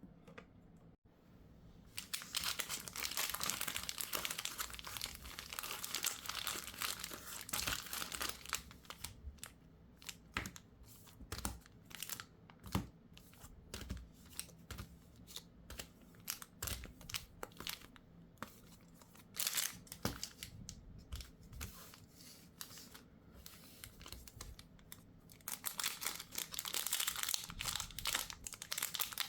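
Plastic packaging of a Pokémon card collection box being handled, crinkling and tearing. The crinkling starts about two seconds in and is dense for several seconds, thins to scattered crackles and clicks, then turns dense again near the end.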